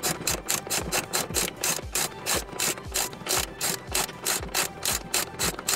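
Socket ratchet wrench clicking rapidly, about five clicks a second, as it spins an engine-mounting bolt on a lawn-mower deck; the clicking stops at the end.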